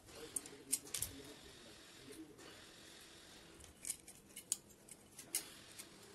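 Small scissors snipping through the thin aluminium of a beer can: a few sharp snips within the first second, a pause, then three more spread over the second half.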